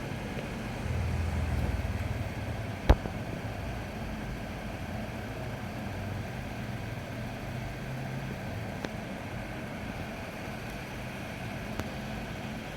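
Steady low mechanical hum with a sharp click about three seconds in.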